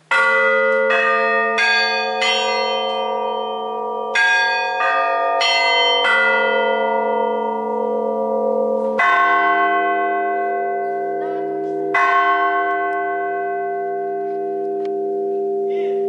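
A row of church bells hung on a steel frame, rung by hand with ropes. Quick strikes come in a run for the first six seconds, then two heavier strokes about three seconds apart bring in deeper bells, every note ringing on and overlapping the next.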